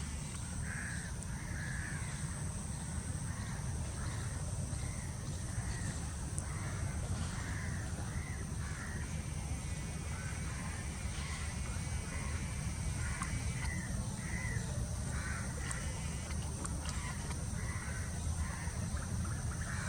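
Birds calling repeatedly in short harsh calls, about one a second, over a steady high-pitched drone and a low rumble.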